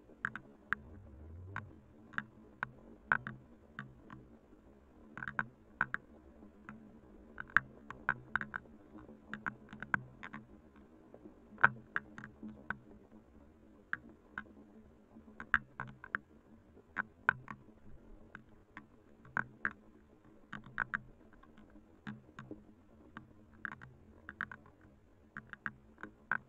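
Raindrops falling on and around a trail camera: irregular sharp ticks of single drops, a few a second, over a faint steady low hum.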